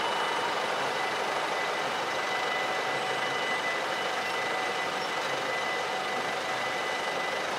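Rolling noise of a freight train moving away from a level crossing, slowly fading, with faint steady high ringing tones held throughout.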